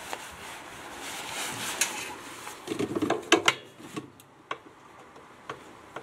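Handling noise from inside a Kenmore/Whirlpool top-load washer agitator, reached into to get at the nut that holds it on: a soft rubbing and scraping, then a quick cluster of light knocks about three seconds in and a few single clicks.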